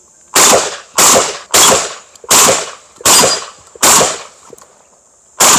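Semi-automatic open-division shotgun firing a rapid string of shots: six shots about two-thirds of a second apart, then a seventh after a pause of about a second and a half.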